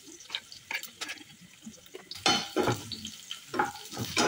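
A knife slicing a tomato against a steel plate, with small clicks. From about two seconds in, a metal spatula stirs and scrapes onions and garlic frying in a wok, in a run of louder, sharp scrapes.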